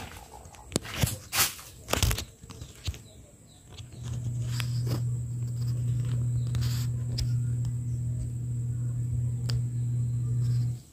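Pool pump motor running with a steady low hum, which fades out for the first few seconds while a few sharp knocks sound, then comes back and cuts off suddenly at the end.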